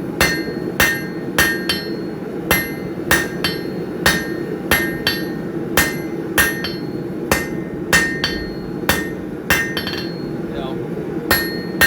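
Hand hammer striking hot steel on an anvil: a steady run of ringing blows, roughly one to two a second, with a short pause near the end.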